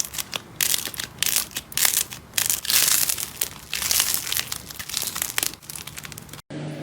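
Slime being squeezed and pressed by hand, giving irregular crackly, crinkly pops and squelches. The sound cuts out abruptly near the end.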